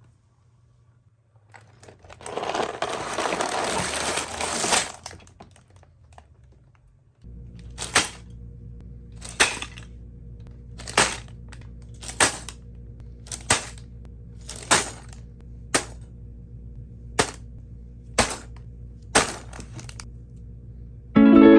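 A loud crinkling, tearing noise for about three seconds, typical of plastic packaging being torn open. Then, over a low steady hum, comes a series of about a dozen sharp clicks, one every second or so. Guitar music starts right at the end.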